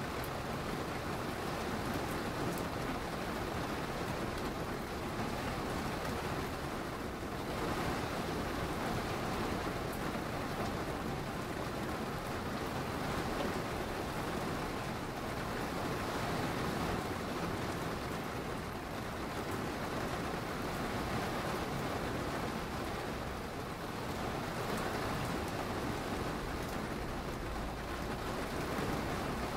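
Steady rainfall from a thunderstorm: a dense, even hiss of rain, rising and easing slightly in waves, with no distinct thunderclap.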